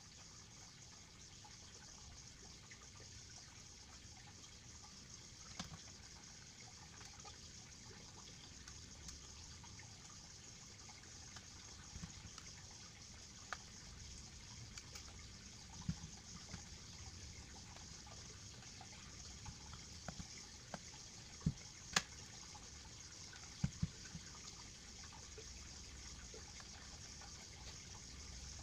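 Faint steady hiss with scattered small clicks and taps from hands handling and fitting together the plastic body parts of a Canon EOS 700D DSLR. A few sharper clicks come close together about three quarters of the way in.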